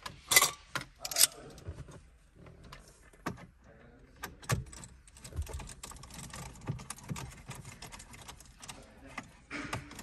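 Screwdriver and hands working on plastic dashboard trim, undoing screws: two sharp clicks about half a second and a second in, then many small clicks and rattles.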